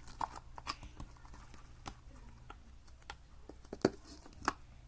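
Light, scattered clicks and taps of small toys being handled, with two sharper clicks near the end.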